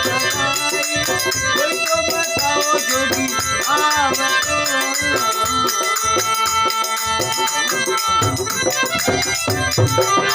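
Instrumental passage of Rajasthani folk devotional music: a melody instrument with a steady rattling percussion beat, drums coming in more strongly near the end.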